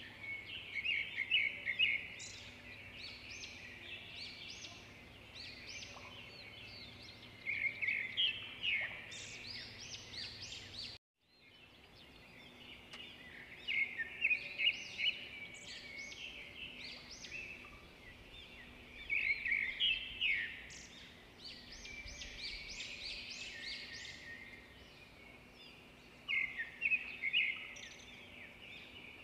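Songbirds chirping and twittering in clusters of quick high notes that come back every five or six seconds, over a faint steady hum. The sound drops out completely for a moment about eleven seconds in.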